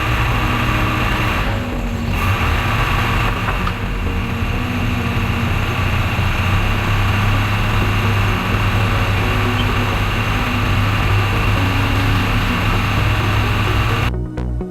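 Car engine running steadily at a strong, even idle, with a few brief swells of noise in the first few seconds. About fourteen seconds in, it gives way to music.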